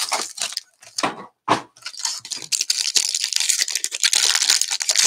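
Foil wrapper of a Bowman Chrome baseball card pack crinkling and tearing as it is pulled open by hand. Separate crackles come first, then a steady, dense crinkling from about halfway through.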